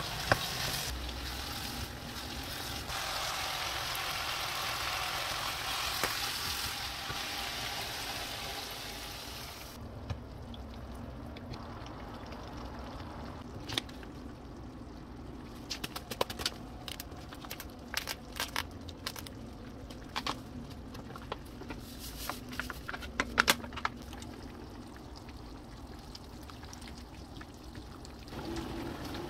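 Chopped cabbage and carrot sizzling in a frying pan while stirred with a wooden spoon; the sizzle stops abruptly about ten seconds in. Then a wooden spoon taps and scrapes against a ceramic bowl in scattered knocks while thick jjajang sauce is mixed, and a steady hiss returns near the end.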